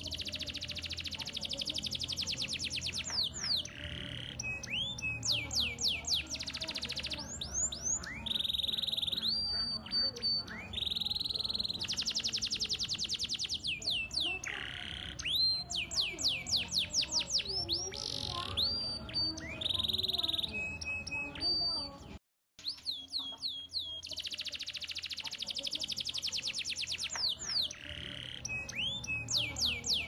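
Domestic canary singing a long, unbroken song of fast rolling trills and quick whistled glides. A split-second silence falls about three-quarters of the way through.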